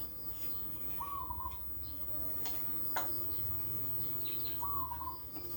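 A bird gives the same short whistled call twice, about four seconds apart, with a few light sharp clicks in between.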